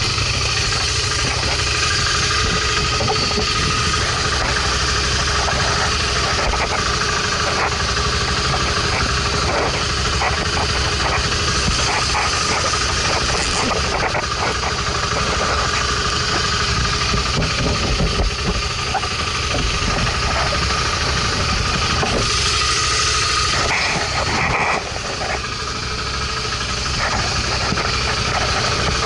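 Motorcycle engine idling steadily, with scattered clicks and rustling from gloved hands handling luggage for a stretch in the middle.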